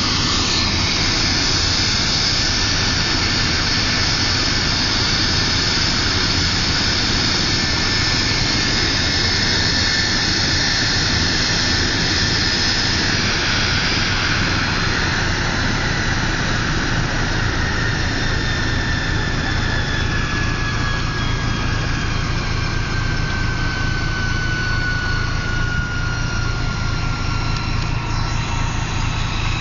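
Helicopter turbine engines running with a loud, steady high whine over a low rotor hum. From about halfway through, the whine slowly falls in pitch.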